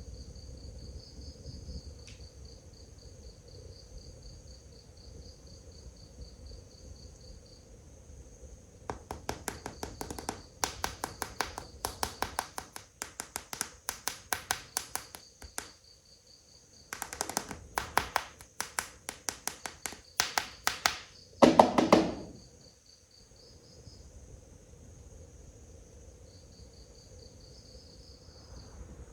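Crickets chirping steadily throughout. Over that, a fast run of sharp clicks from about nine seconds in until about twenty-two seconds, ending in one short, louder sound with a lower pitched tone.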